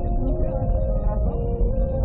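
Music with a heavy bass, muffled and thin on top.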